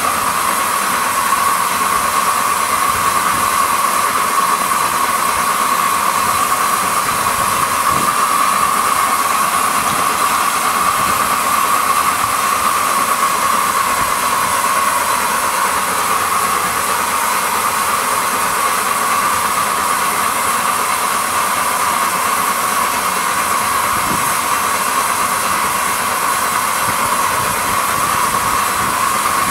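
A 7¼-inch gauge live-steam model of a New York Central Dreyfuss Hudson locomotive running on a bench-test stand, its wheels turning fast. It makes a loud, steady rushing hiss with no separate exhaust beats.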